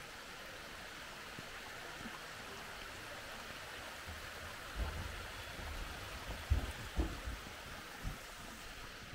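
A steady hiss like running water or rain, with several low, dull thumps in the second half.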